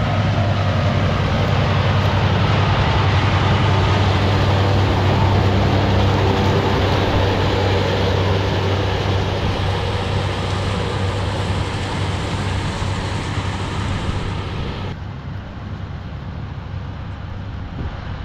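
Farm tractor engine running steadily with a low hum under a broad mechanical rush. About fifteen seconds in the higher part of the noise cuts off suddenly and the sound turns quieter and duller.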